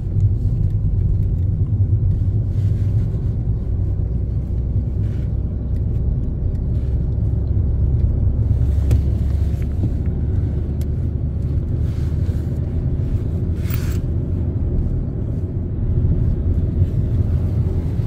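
Steady low rumble of a car driving, engine and tyre-on-road noise heard from inside the cabin.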